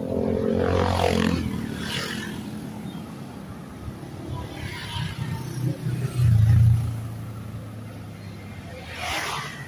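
Motorcycles and motorcycle tricycles passing close by, their engines swelling and fading. The loudest pass, a little after six seconds, is a low steady engine hum lasting about a second.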